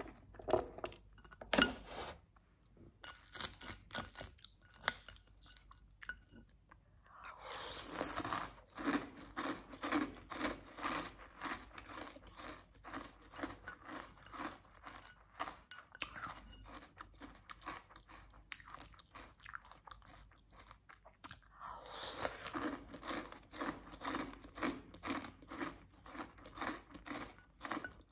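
A person chewing chocolate cereal in chocolate milk: steady, rhythmic crunching, with a few sharp bites in the first two seconds.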